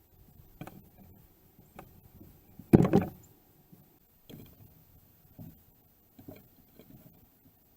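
Irregular knocks and taps of birds at a seed feeder bowl, about seven in all, the loudest a quick double knock about three seconds in.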